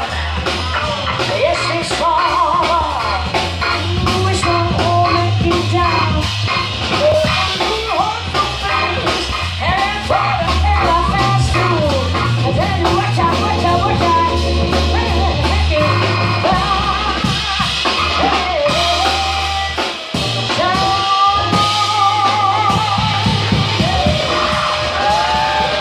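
Live jazz: a woman singing with vibrato over a keyboard, which carries a steady low bass line, and a drum kit with cymbals. In the last few seconds she holds long notes.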